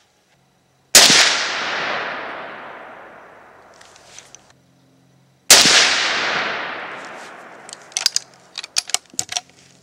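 Two rifle shots from an 1895 Winchester lever-action chambered in 7.62x54R, about four and a half seconds apart, each ringing out and dying away over about three seconds. Near the end comes a quick run of sharp metallic clicks as the lever action is worked.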